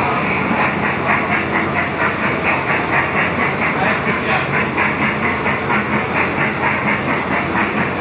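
Thomas the Tank Engine kiddie ride train running, giving an even, quick chuffing rhythm with a hiss.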